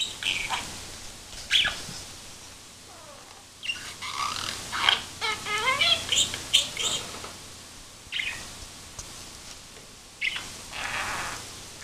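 A budgerigar chirping and warbling in bursts of short, high, wavering calls, busiest a few seconds in.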